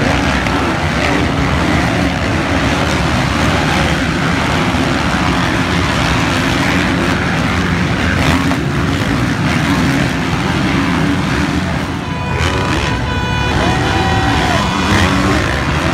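Several motocross bikes racing past, their engines revving up and down and overlapping in a continuous loud drone. About twelve seconds in, a steady high tone with overtones holds for a second or two.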